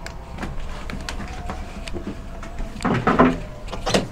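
A house door being handled: latch and handle clicks as it is opened and shut, with a few footsteps, and a louder knock of the door about three seconds in and another sharp click just before the end.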